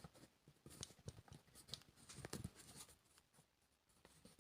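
Near silence, broken by a few faint clicks and knocks of something being handled, the loudest a little over two seconds in.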